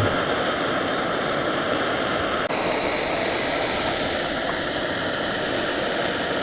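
Steady rushing hiss, with a brief break about two and a half seconds in.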